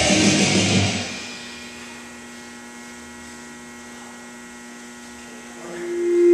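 Heavy rock music fades out about a second in, leaving a steady electrical hum of several held tones. Near the end a louder steady tone swells up.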